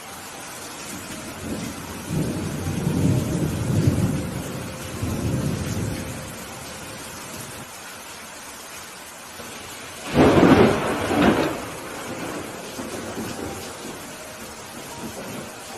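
Steady rain with thunder: a low rumble rolls for about four seconds starting around two seconds in, then a louder, sharper thunderclap comes about ten seconds in, trailing off into a fainter rumble.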